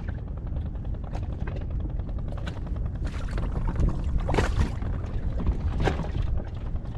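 Wind buffeting the microphone on an inflatable boat at sea, a steady low rumble, with a few scattered knocks and slaps about once a second or two.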